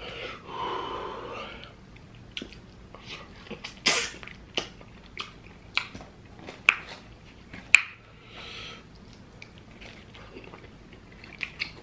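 Close-miked eating of hot wings and pizza: chewing with a string of sharp, wet lip smacks, which the eater puts down to the vinegar on the hot wings. Two longer breathy sounds come at the start and about two-thirds of the way through.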